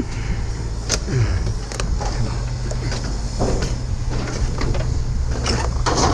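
A vehicle engine runs steadily with a low hum, while scattered knocks and clanks of scrap being handled come and go, the strongest near the end.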